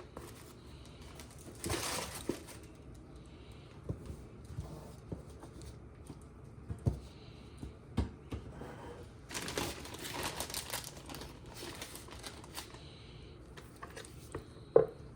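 Kitchen handling noises: scattered light clicks and knocks of containers and utensils, with two stretches of rustling and crinkling, about two seconds in and again around ten seconds in.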